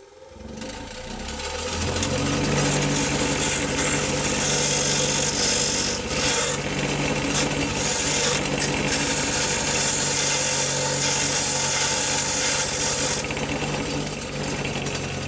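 Bench grinder motor spinning up and then running with a steady hum, while the cut end of a threaded bolt is held to the abrasive wheel with a loud gritty hiss, grinding a chamfer that takes off the burrs left by cutting. The grinding breaks off briefly a couple of times and stops shortly before the end, leaving the motor running.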